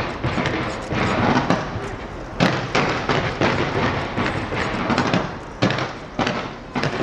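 Aerial fireworks bursting in a rapid, irregular series of bangs over a continuous crackling din.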